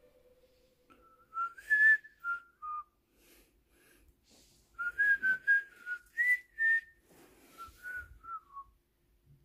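A Pomspitz (Pomeranian-Spitz mix) dog whining in short, high, slightly sliding notes, in three clusters with breaths and sniffs between them.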